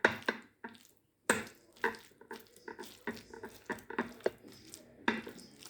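Scattered light clicks and taps of hands handling food and a dish, with a brief dead-silent gap about a second in.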